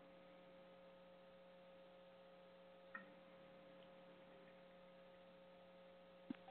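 Near silence: a faint steady electrical hum on the recording line, with a faint click about three seconds in and another near the end.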